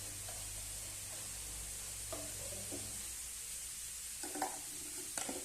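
Mixed vegetables with tofu and tempeh sizzling in a wok as they are stirred, with short scraping knocks against the pan about two seconds in and a few sharper ones near the end.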